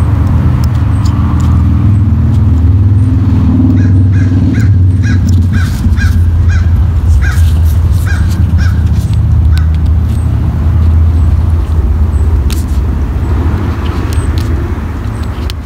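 A loud, steady low rumble that starts abruptly. Partway through, a bird calls about a dozen times in quick succession, about two calls a second.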